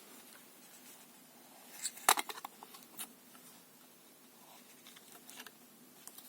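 Handling noise from the sound effects toy: a quick cluster of sharp clicks about two seconds in, another click about a second later, and a few fainter clicks around five seconds, over a faint low hum.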